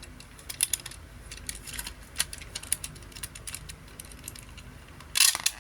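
Small screw being undone from the base of a 1/43 scale diecast model car: a run of light, irregular clicks and scratchy scrapes, with a louder brief rasp about five seconds in.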